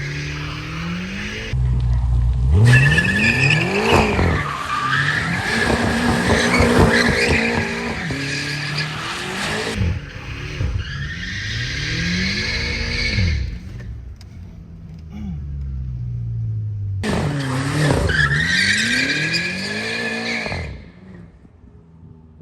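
BMW M5 F10's twin-turbo V8 revving up and dropping again and again while the tyres squeal through drifting slides, in three long stretches. The sound dies away near the end.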